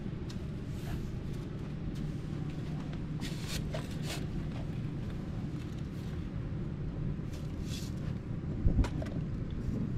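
Metal sand scoop being driven into beach sand and lifted out, with short scraping hisses of sand around the middle and again near the end, and a single thump near the end. A steady low rumble runs underneath.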